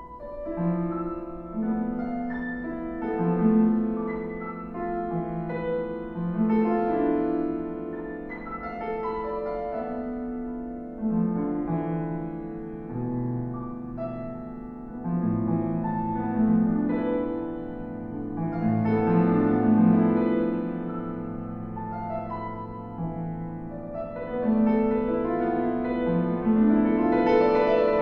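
Solo piano playing a contemporary piece written in a five-note mode built of a semitone, two tones, a tone, a tone and a half and a tone. Overlapping lines of sustained notes are heard, bass notes come in about halfway through, and the playing grows louder near the end.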